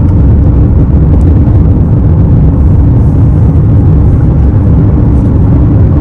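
Car driving along the road: a steady low rumble of road and engine noise that holds even throughout.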